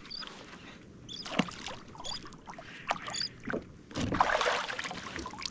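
Water splashing and sloshing around a fishing kayak, with scattered knocks of gear being handled aboard and a louder splash about four seconds in.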